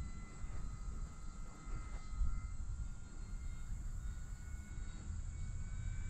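Gusting wind buffeting the microphone, with the faint steady whine of an E-Flite P-39 electric RC warbird's motor and propeller flying at a distance, its pitch drifting slightly.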